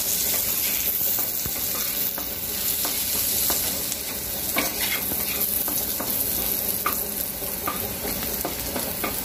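Sliced onion sizzling in hot oil in a kadai, stirred with a wooden spatula that scrapes and taps against the pan now and then. The onion is being fried until lightly browned.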